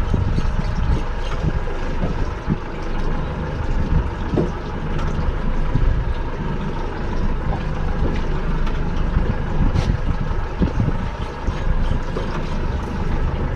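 Small fishing boat's engine idling, a steady hum over a low rumble.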